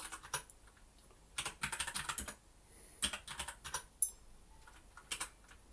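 Typing on a computer keyboard: quick runs of keystrokes in several bursts, with short pauses between them.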